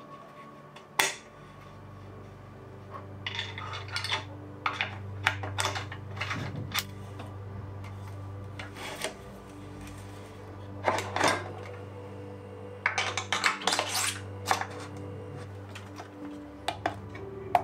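Metal clinking and clicking of tools and bike parts being handled, sharp taps coming singly and in small clusters, over a low steady musical drone.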